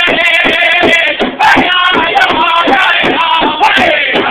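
Pow-wow drum group: several men singing together in high, wavering voices over a big drum struck in a steady beat of about four strokes a second.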